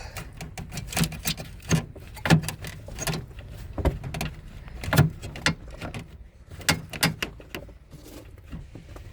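Irregular sharp clicks and knocks of hand tools and metal and plastic parts being handled while a bolt is taken out of a car's radiator cooling fan assembly, the loudest a little over two seconds in and about five seconds in.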